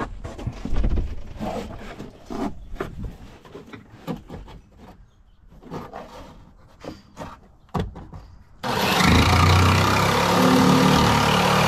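Handling noises: scattered light knocks, clicks and rustles. About nine seconds in, a power tool starts suddenly and runs loud and steady, cutting the speaker hole.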